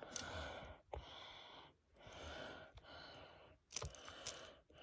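Faint breathing close to the microphone, four soft breaths in a row, with a few sharp handling clicks near the end.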